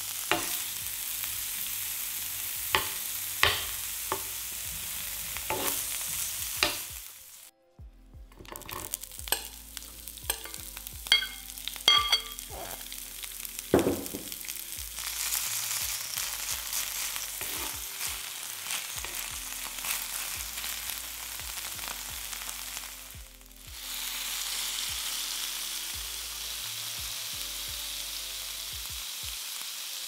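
Julienned carrots sizzling in oil in a nonstick frying pan, with several sharp taps as they are tossed. After a brief break, seasoned bracken fern stems sizzle while a metal spoon stirs them, clinking and ringing against the pan, and a steady sizzle takes over for the last few seconds.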